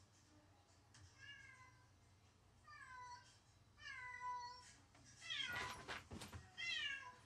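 Domestic cat meowing repeatedly, about five drawn-out calls that fall in pitch, the loudest just past the middle: lonely crying of a cat left alone.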